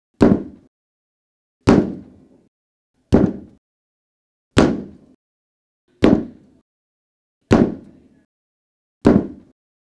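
Seven sharp knocks at an even pace, about one every second and a half, each dying away within half a second, with complete silence between them: a recreated foley sound effect.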